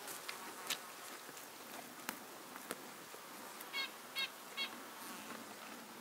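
Quiet lakeshore ambience: a faint steady buzz of insects with scattered light clicks. About four seconds in come three short calls, evenly spaced a little under half a second apart.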